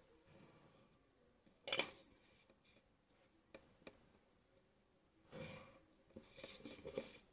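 Pencil and plastic set square on paper: a brief rustle as the square is shifted, a few light ticks, then scratchy pencil strokes and handling near the end.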